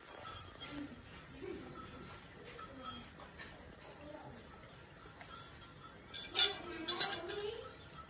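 Steady high-pitched insect chirring in the background, with two sharp clatters about six and seven seconds in.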